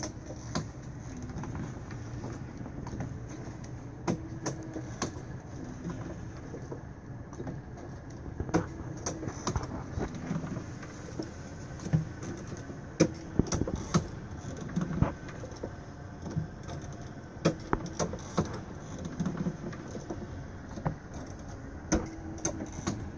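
Electric motor running a homemade animated prop's crank and PVC linkage, a steady hum with clicks and knocks from the moving parts that come in clusters every few seconds.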